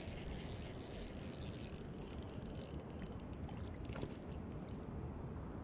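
Spinning reel being cranked as a hooked trout is played, over a steady low rumble. A high steady buzz fades out about two seconds in, followed by a quick run of sharp clicks.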